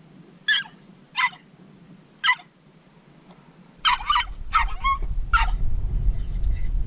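Jack Russell terrier giving a series of short, high yips, spaced out at first and then coming faster from about four seconds in. Wind rumble on the microphone starts at about the same point.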